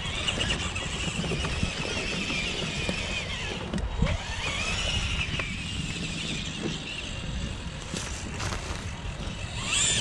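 Electric motor and gear drivetrain of a 1/5-scale RC crawler whining as it creeps over dirt, the whine dipping and rising with the throttle. Wind rumbles on the microphone underneath.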